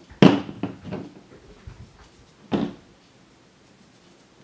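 Hollow knocks and clatter of PVC pipe fittings being handled and set down on a tabletop: a sharp knock near the start, a few lighter ones just after, and another knock about two and a half seconds in.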